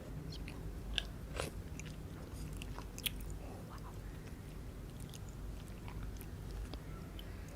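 A person biting into and chewing pani puri: the crisp fried shells crunch and crackle, with the sharpest cracks about a second in and again about three seconds in.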